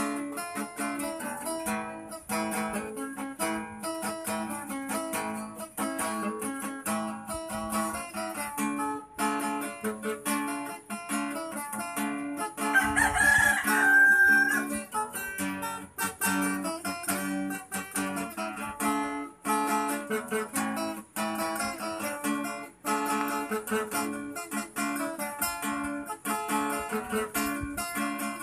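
Acoustic guitar background music, plucked and strummed notes throughout. About halfway through, a louder pitched cry over a second long rises and falls above the music.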